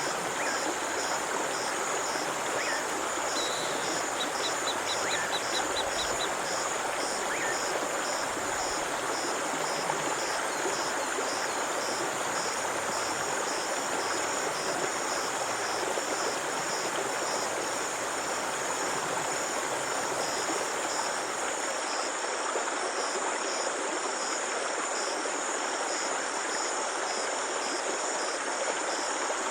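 Steady rush of a flowing stream, with insects chirping high above it in an even, regular pulse. A short rapid trill comes in about four seconds in.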